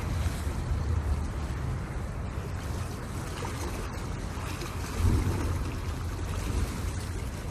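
Wind buffeting the microphone in a steady low rumble, swelling in a gust about five seconds in, over small waves lapping against a rocky shore.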